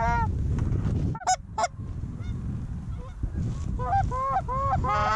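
Canada goose honks: one at the start, two short high clucks about a second in, then a run of honks from about four seconds on that quickens near the end, over a low rumble of wind on the microphone.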